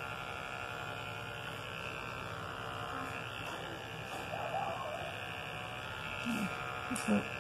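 Corded electric pet clippers running with a steady hum during a puppy's trim, with a few faint short sounds around the middle and near the end.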